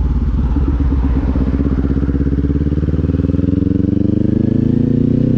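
Kawasaki Z400's 399 cc parallel-twin engine running at low revs while under way, its pitch rising gradually over the last couple of seconds.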